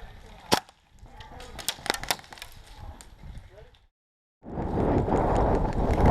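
Sharp cracks of airsoft guns firing: one loud shot about half a second in, then a quick cluster of several more shots about two seconds in. The sound then cuts out completely for a moment before a loud, steady rushing noise takes over.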